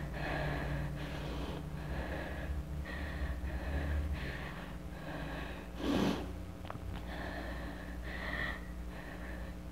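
A girl's repeated sobbing breaths, acted weeping, with one louder sharp gasp about six seconds in.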